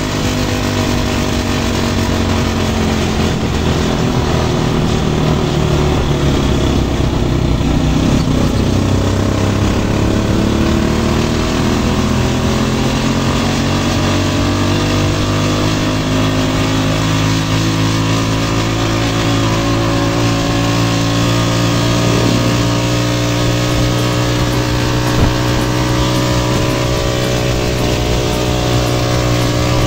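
An engine running steadily, its pitch dropping about a third of the way in and climbing back up a few seconds later.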